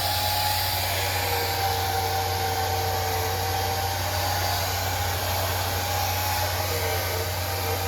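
Handheld blow dryer running steadily: a rushing airflow with a faint whine that wavers slightly in pitch. It is blowing over the lace edge of a glued-down wig to set it.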